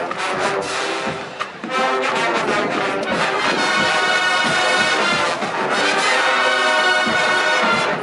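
Marching band brass (trombones and trumpets) playing. The full band gets louder about two seconds in and moves into loud held chords.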